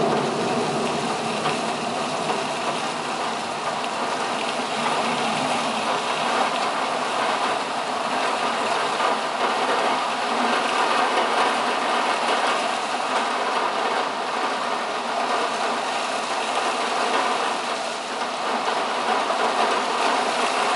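Heavy rain pouring down steadily in a thunderstorm, an even hiss with no thunderclap.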